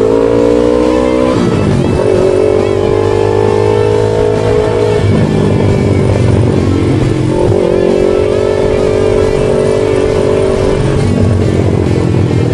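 2017 Yamaha R3's parallel-twin engine pulling through the gears under riding. Its pitch climbs and drops at upshifts about a second and a half in and again around five seconds, then holds steadier.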